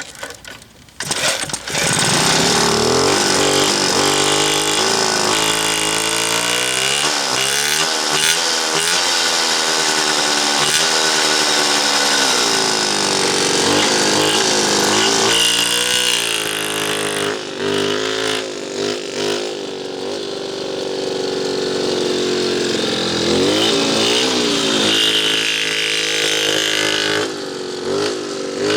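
Puch two-stroke moped engine starting about a second in, then running and being revved up and down repeatedly. It makes a weird noise that the owner cannot account for.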